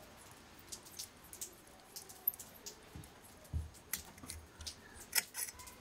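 Manual pin-vise micro drill with a fine HSS twist bit, turned by hand into the thin aluminium wall of a drink can: faint, irregular scratchy ticks and clicks as the bit cuts and the can is handled, with a soft low bump a little past halfway.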